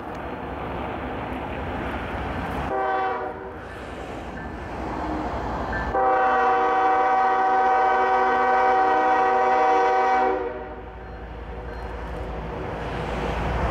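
Horn of an approaching Norfolk Southern diesel locomotive, several notes sounding together: a short blast, then a long blast of about four seconds. Underneath, the rumble of the train grows louder as it draws near.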